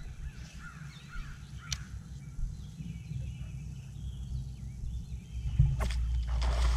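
Birds calling over a steady low outdoor rumble. Just before the end comes a sharp knock as a swim jig rod is swept back on a hookset, followed by a louder wash of water noise as the hooked bass splashes.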